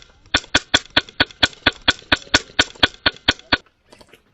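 An airsoft rifle firing a rapid, even string of about fifteen shots, some four or five a second, that stops sharply just before the end.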